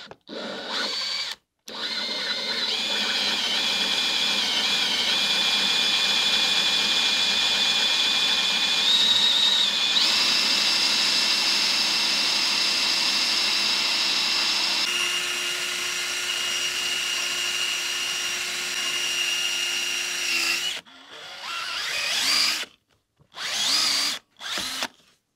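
Cordless drill whining continuously for about 19 seconds as it spins a Citroën XM's hydraulic pump through a belt looped around the pump pulley. Its pitch steps up about ten seconds in and drops again around fifteen seconds in. It stops, then runs in several short bursts near the end. As pressure builds the pump gets harder to turn and the belt starts to slip.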